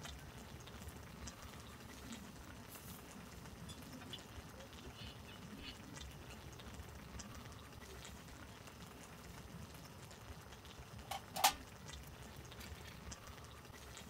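Quiet low background rumble with faint small handling ticks. About eleven seconds in come two sharp, ringing clinks a third of a second apart: ice cubes dropped into a Snow Peak titanium mug.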